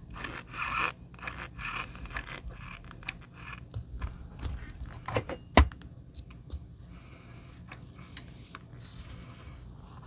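Cornstarch crunching and scraping as a spoon and then fingers scoop and press into it in a plastic bowl: a run of soft, crackly squeaks, busier in the first half, with one sharp click a little past halfway.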